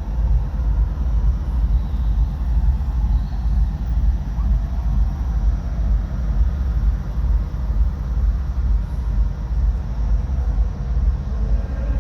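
Amplified party music from a distant outdoor event carrying across open ground, heard mostly as a heavy, pulsing bass rumble with little of the melody coming through.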